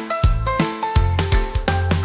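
Instrumental interlude of a bouncy children's song: a melody line over a steady beat, with no singing.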